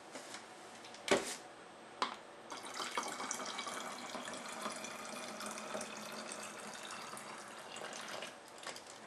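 Hot rosemary tea poured from a glass measuring cup into a plastic bottle: a steady trickle of liquid filling the bottle for about six seconds, stopping near the end. Two short knocks come before the pour starts.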